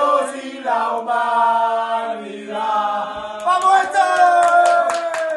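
A group of men singing together at full voice, chant-like, holding long notes. Sharp claps join in during the last couple of seconds.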